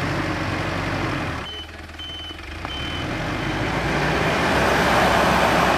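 A 4x4 ambulance on rubber snow tracks driving through deep snow: steady engine running with track and snow noise that grows louder toward the end. Three short high beeps sound between about one and a half and three seconds in.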